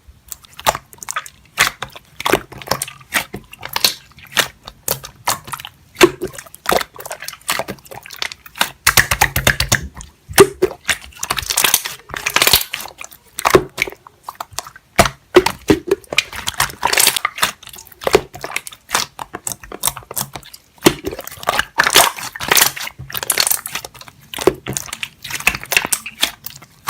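Close-miked crunchy eating: repeated bites and chewing, with irregular crackling crunches throughout.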